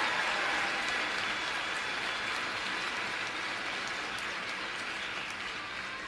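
Arena crowd applauding, slowly dying away.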